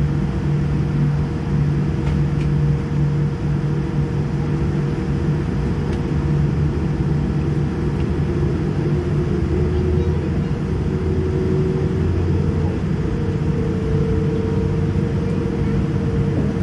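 Steady cabin noise inside a Boeing 787-9 taxiing after landing: the Rolls-Royce Trent 1000 engines at low power as a constant low hum with a few steady tones over it.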